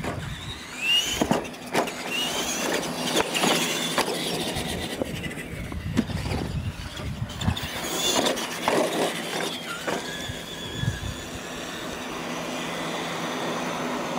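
Electric radio-controlled monster trucks racing on dirt: motor whines rising in pitch with the tyres on dirt, broken by repeated sharp knocks and thuds as the trucks hit and land off the ramps. Over the last few seconds it settles into a steadier, even noise.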